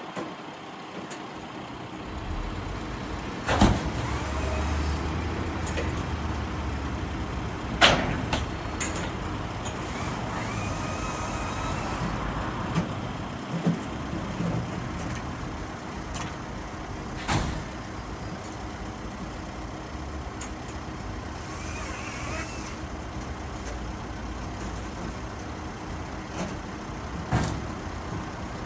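A Valtra tractor's diesel engine running steadily, with four loud knocks several seconds apart and brief whines that rise and fall.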